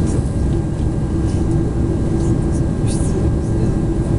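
Cabin noise of an Airbus A340-311 taxiing, its four CFM56-5C engines running at low thrust: a loud steady rumble with a steady hum, and a few faint ticks.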